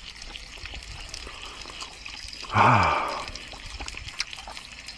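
A man's short hum or sigh, falling in pitch, about halfway through, over a faint steady hiss with scattered small clicks.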